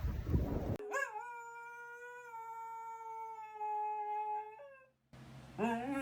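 English Cocker Spaniel howling in answer to a siren: one long, steady howl of about four seconds, then after a short break a second howl that rises and wavers in pitch. A moment of wind noise on the microphone comes before the first howl.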